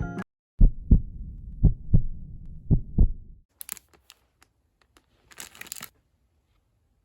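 Heartbeat sound effect: three slow double thumps (lub-dub) over a low rumble, stopping after about three seconds. Faint light clicking and crinkling follows.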